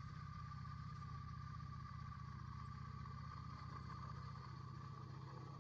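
Motorcycle engine running at a steady speed: an even low rumble with a thin steady whine above it.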